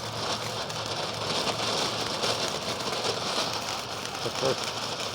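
Firework fountain burning, a steady crackling hiss of spraying sparks.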